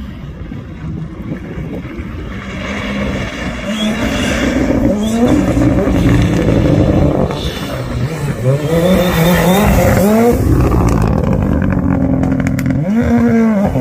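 Ford Fiesta rally car engine revving hard as the car approaches at stage speed. The pitch climbs and drops again and again with the gear changes, and the car grows louder as it nears.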